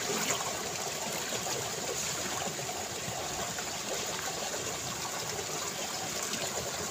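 Steady trickle of water running through a small irrigation ditch.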